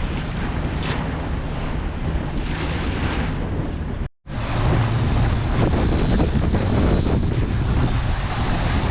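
Wind buffeting the microphone over steady sea and boat noise, with the rush of waves. The sound drops out completely for a split second about four seconds in, then resumes slightly heavier in the low end.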